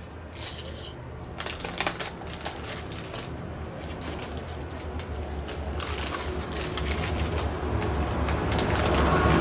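Plastic bubble wrap and anti-static bags crinkling as they are handled, with a low rumble growing steadily louder through the second half.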